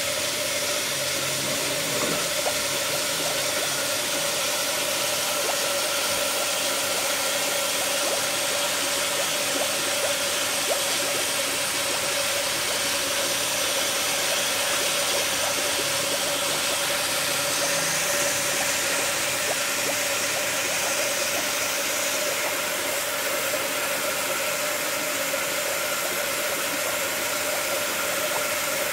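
Pump-fed venturi microbubble generator running: a steady hiss of water and air jetting into the water, with a steady hum.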